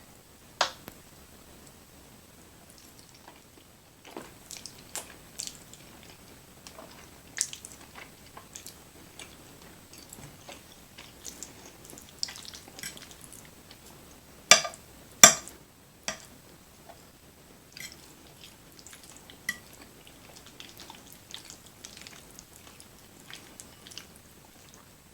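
Close-up chewing of creamy chicken fettuccine alfredo, with scattered wet mouth clicks and smacks. About halfway through, two loud sharp clicks come in quick succession.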